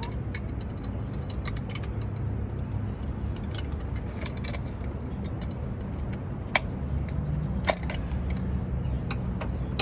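Ratchet wrench clicking in irregular strokes, with two sharper metal clinks about six and a half and seven and a half seconds in.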